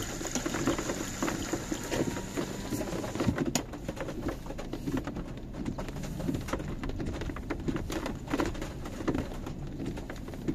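Rain pattering irregularly on a car's roof and windscreen, heard from inside the cabin over a steady low rumble of the moving car.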